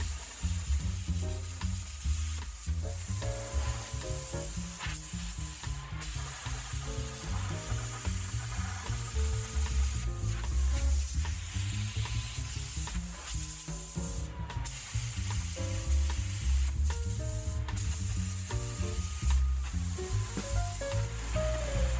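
Miller Spectrum 625 X-TREME plasma cutter hissing and sizzling as it cuts a disc out of sheet steel, with background music and a steady low beat underneath.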